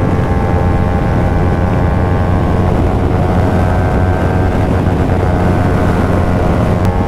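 KTM motorcycle engine running at steady revs while riding, with wind rush on the microphone. The engine note becomes less even about three seconds in and settles again near the end.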